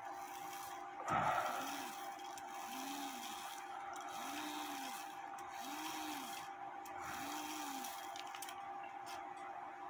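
Regula 701 cuckoo clock movement running its hour cycle: a sharp clack about a second in as the train is released, then five separate rising-and-falling whirs about a second and a half apart as it cuckoos the hour, over a faint steady hum.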